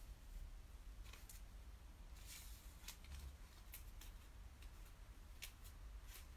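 Near silence: quiet room tone with a low hum, a few faint scattered clicks and a short faint rustle about two seconds in.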